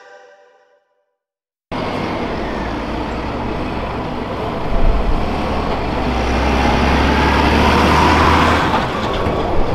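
Background music fades out. After a short gap, the diesel engine of farm harvesting machinery cuts in abruptly, about two seconds in, and runs steadily under dense mechanical noise.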